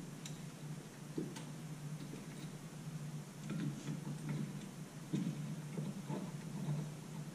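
Irregular light metallic clicks and ticks of a wrench and bolt at a brake upright as a brake caliper bracket bolt is threaded in by hand, over a steady low hum.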